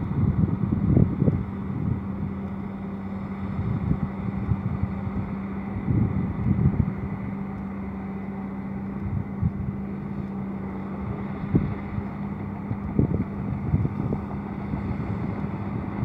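Komatsu D65PX crawler dozer's diesel engine running steadily under load as it pushes a pile of soil, with wind gusts buffeting the microphone now and then.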